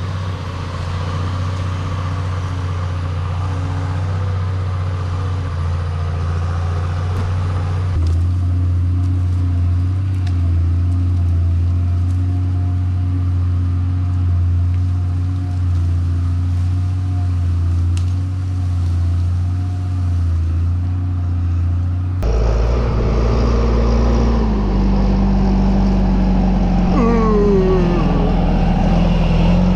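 Vehicle engine running steadily with a low drone, the sound changing abruptly about eight seconds in and again about twenty-two seconds in.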